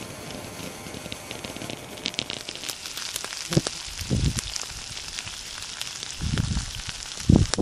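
Sausages sizzling in a cast-iron frying pan on a grate over a campfire, with the wood fire crackling from about two seconds in. A few dull low thumps break in, the loudest near the end.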